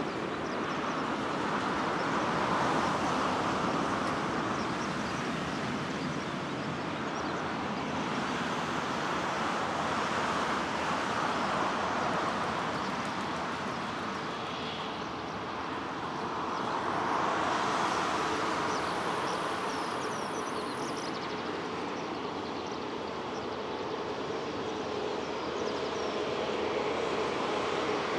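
Jet airliner engines running at low power, a steady noise that swells slowly twice.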